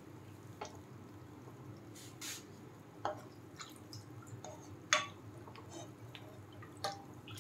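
Gulab jamun dough balls frying in ghee over medium heat: steady gentle bubbling with scattered small pops and a few sharper clicks.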